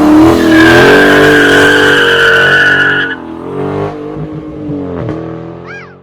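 Car engine revving with a high tyre squeal from about half a second in to about three seconds, after which the engine note drops and fades away.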